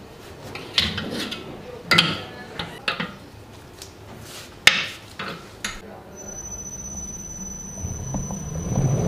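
A large stainless steel mixer bowl clanking and knocking as it is seated on a commercial planetary mixer and the beater is fitted. About six seconds in, the mixer motor starts with a steady high whine and a hum that builds as the flat beater turns through flour and batter.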